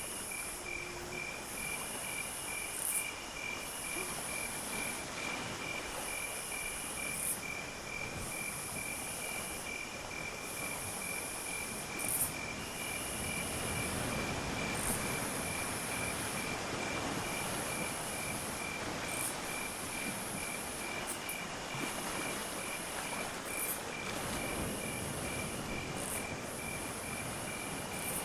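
Insect chorus of crickets: a steady, rapidly pulsing high trill under repeated, even higher buzzing calls that break off every couple of seconds. A broad low rushing noise swells in from about halfway through.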